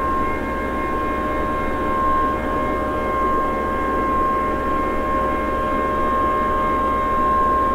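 The unexplained 'mystery sound' (skyquake): a loud, steady drone with one constant high tone and a few fainter steady tones over a low rumble, unchanging throughout. Its source is unknown; the recordist guesses it could be a gigantic generator or a huge air-conditioning system.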